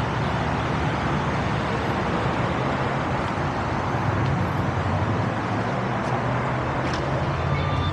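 Motor-vehicle engine running steadily at idle, with a steady wash of traffic noise.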